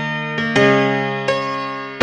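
Background music: piano-like keyboard chords held and fading, with new chords struck about half a second in and again near the end.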